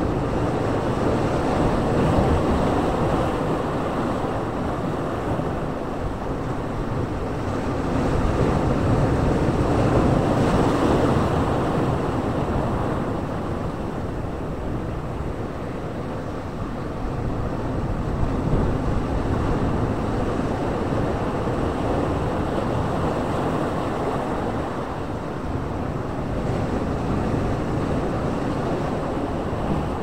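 Sea waves breaking among rocks on a rocky shore: a steady rush of surf that swells every several seconds as each wave comes in and washes through the boulders.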